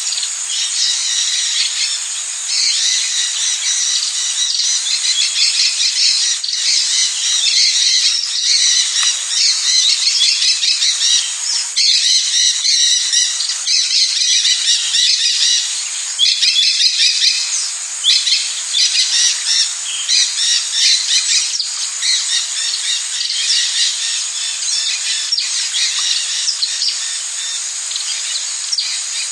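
Rainforest ambience: a dense, continuous chorus of bird calls and squawks over a steady high-pitched insect drone.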